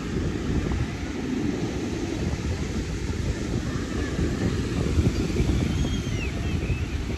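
Wind buffeting the microphone with surf, a steady gusting rumble. A few faint, short high-pitched calls come through a little past the middle.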